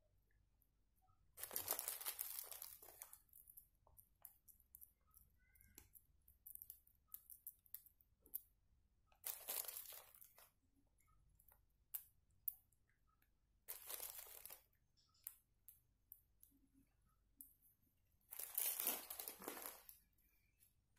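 Plastic crinkling in four short bursts, with scattered light clicks and taps in between.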